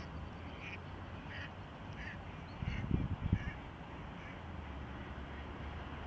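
Ducks quacking: a series of short calls, roughly one a second, fading out after about four seconds, over a low steady rumble. A few low thumps of wind on the microphone come around the middle.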